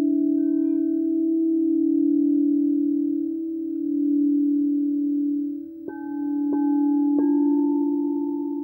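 Frosted quartz crystal singing bowls ringing: a low bowl tone holds steady, slowly swelling and fading. About two-thirds of the way through, three soft mallet strikes set higher bowl tones ringing over it.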